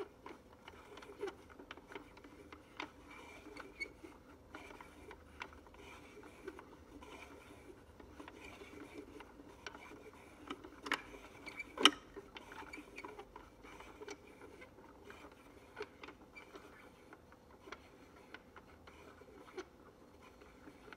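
Wooden automaton mechanism turned by hand: wooden gear teeth, cams and followers clicking and knocking unevenly, with one sharp knock about halfway through.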